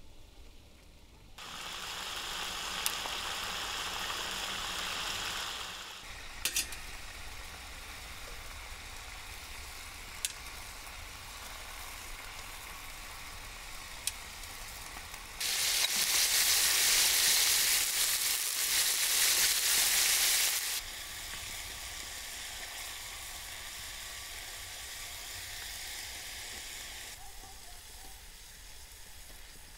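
Rabbit pieces frying in oil in a wide metal pan, giving a steady sizzle. The sizzle swells louder for about five seconds midway and dies down near the end, with a few sharp clicks along the way.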